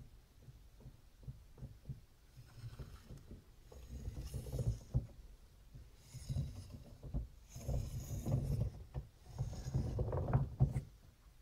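Vectrix VX-1 electric motorcycle's rear hub motor and planetary gearbox turned slowly by hand, giving a low, uneven pulsing rumble that grows louder about four seconds in: cogging noise from the motor's magnets working against the planetary gears, which the owner takes to be normal. The brake pads grind lightly on the disc in short stretches.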